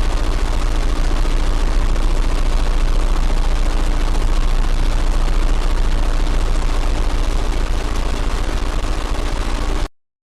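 Television static: a steady hiss over a heavy low rumble, with a faint steady hum, cutting off suddenly just before the end.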